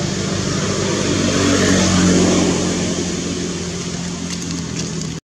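A motor vehicle's engine running nearby, a low hum with steady noise, growing louder for about two seconds and then easing off.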